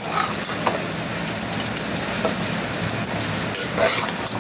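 Metal ladle stirring and scraping mutton and masala in a pressure cooker pot over the flame, with a steady sizzle of the frying masala. The ladle clinks against the pot a few times.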